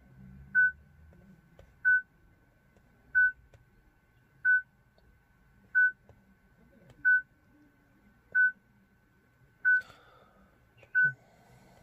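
PSA RD4 factory car radio beeping, nine short beeps at one pitch about 1.3 seconds apart. It is the warning the radio gives when fitted in a car it is not coded to; the beeping stops once the car's chassis number is written into it with a scanner.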